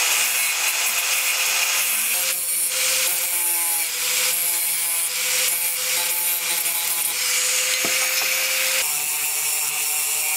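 Angle grinder running at speed with a steady whine, its cut-off disc grinding through the metal jaw of a jumper-cable clamp with a continuous rasping hiss. The whine dips slightly about three-quarters of the way in as the disc bites harder, then recovers.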